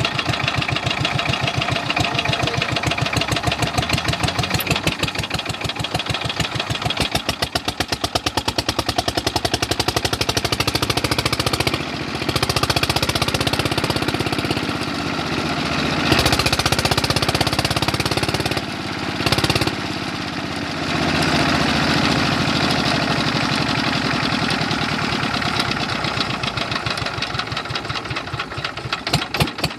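Old-style Petter stationary diesel engine running a tube well, with a steady beat of firing strokes. For several seconds near the middle the sound turns to a more even rush, and near the end the beats spread further apart.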